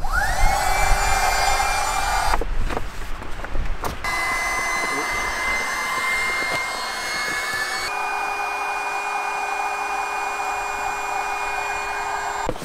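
Small electric air pump inflating an air mattress: it spins up with a quickly rising whine, stops about two seconds in, starts again a second and a half later and runs steadily, its pitch stepping up slightly near the middle.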